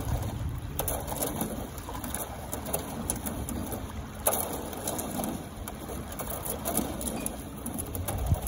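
Water spilling over a low concrete weir: a steady rush of splashing water.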